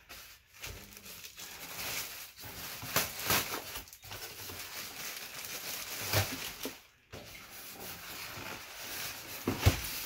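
Plastic bag and foam packing rubbing, scraping and crinkling as an appliance is handled in its cardboard box, with a sharp knock near the end.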